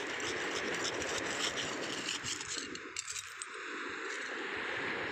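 Broken coral rubble clinking and crunching: many small, fine clicks over a steady hiss.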